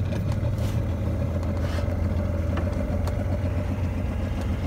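Small boat's motor running steadily under way, a constant low engine note with a few light clicks over it.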